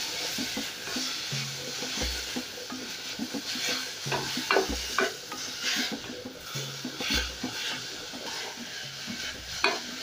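Wooden spoon stirring spinach and spring onion frying in oil in an aluminium pot: a steady sizzle with repeated scrapes and knocks of the spoon against the pot, busiest about halfway through and again near the end.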